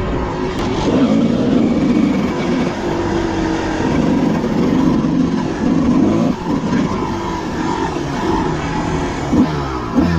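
Dirt bike engine running under way, its pitch climbing and dropping repeatedly as the throttle is worked.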